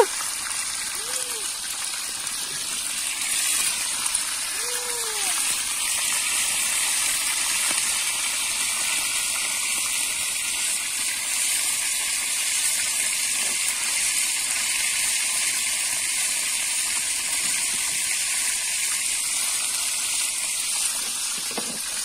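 Pieces of fish frying in hot oil in an iron pan over a wood fire: a loud, steady sizzle.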